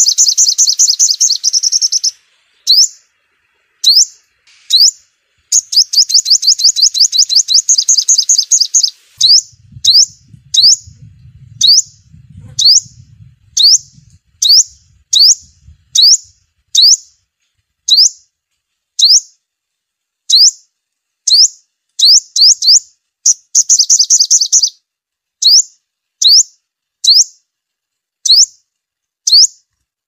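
Sunbird song: sharp, high, down-slurred chip notes repeated about once a second, broken by rapid trills at the start, for a few seconds before the middle, and briefly near the end. A faint low rumble sits under the calls for several seconds in the middle.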